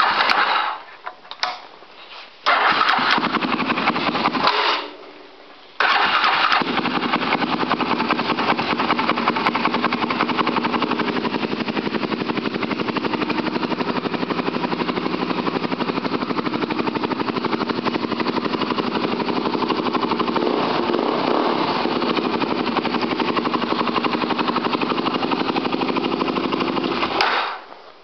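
2005 Polaris Predator ATV engine on a hard cold start after a carburetor cleaning, running on fuel primed into the carburetor. It dies about a second in, catches and runs for about two seconds, dies again, then catches a third time and runs steadily for about twenty seconds before being shut off near the end.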